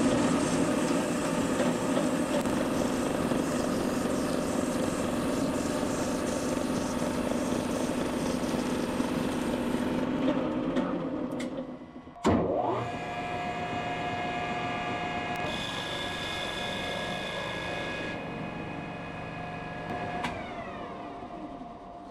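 A metal-cutting bandsaw cuts through round bar stock with a steady, rough noise. About twelve seconds in it gives way abruptly to a metal lathe running steadily with a constant whine as it turns the bar.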